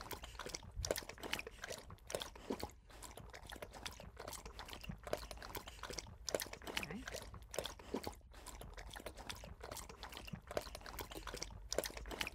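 A dog licking and lapping at the top of a plastic milkshake bottle: quick wet licks and smacks, several a second, with irregular pauses.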